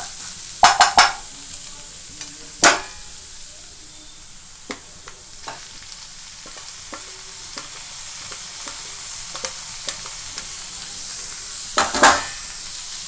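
Chopped onions sizzling steadily in hot oil in a frying pan, stirred with a spatula that knocks and scrapes against the pan: a quick cluster of knocks about a second in, a single knock near three seconds, and another cluster near the end.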